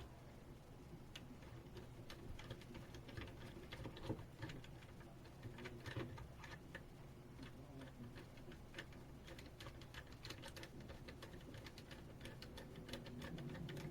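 Faint, irregular light clicks and taps of small parts being handled and fitted during hand assembly, over a low steady hum.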